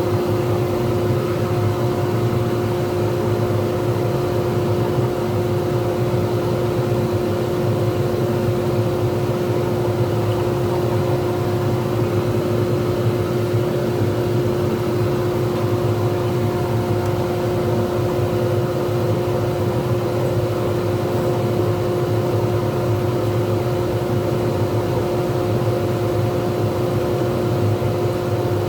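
Lathe motor running steadily with a constant whine and hum as it spins a resin pen blank.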